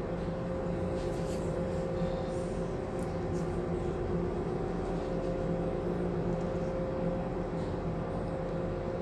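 Steady machinery hum holding several steady tones, with a few faint light taps.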